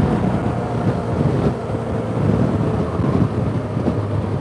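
Motorcycle riding at steady cruising speed: wind rushing over the microphone over the low, steady running of the BMW F800GS's parallel-twin engine.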